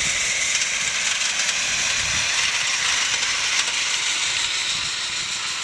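Steady hiss of steam from a 3-1/2 inch gauge live steam CPR Hudson model locomotive as it runs past pulling riders, easing slightly near the end as it moves away.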